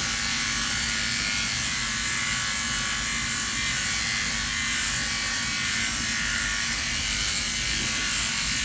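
Electric dog grooming clippers running with a steady buzz as they are worked over a dog's coat.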